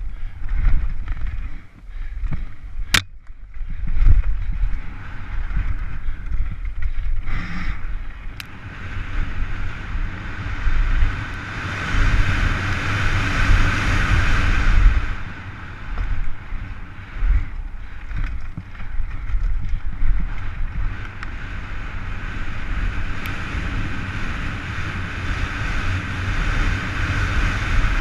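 A downhill mountain bike ridden fast: wind buffets the helmet-camera microphone, the tyres rumble and hiss over dirt and loose gravel, and the bike gives a few sharp clicks and rattles.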